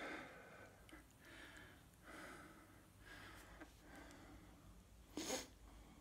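Faint breathing and soft exhales of smoke from a glass pipe, with one short, sharper exhale about five seconds in.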